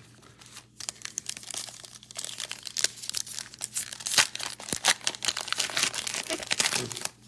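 Foil wrapper of a trading-card pack being torn open and crinkled by hand: a dense run of sharp crackling and tearing that starts about a second in.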